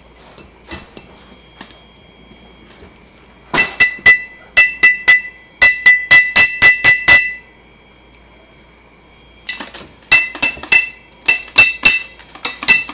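A partly filled glass bottle being struck over and over by a toddler, each hit giving a ringing clink. The hits come in quick runs of about four a second, with a pause of about two seconds in the middle.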